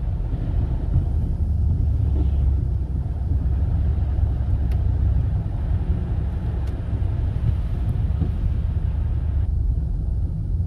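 Steady low rumble of a car's engine and tyres on a snow-covered road, heard from inside the cabin while driving.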